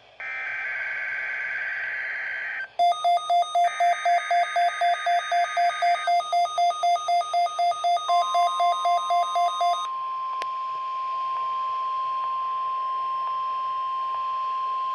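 NOAA Weather Radio Required Weekly Test tones. A raspy SAME digital header burst plays, then a receiver's alert beeps about four times a second from about 3 s in to about 10 s in, while a second header burst runs under the beeps. About 8 s in the steady single-pitch 1050 Hz weather radio warning alarm tone starts and holds.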